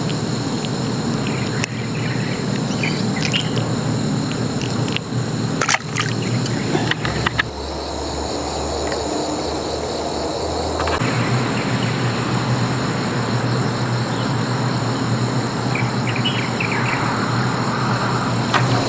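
Insects singing steadily in several high pitches at once, with a few sharp clicks in the first half.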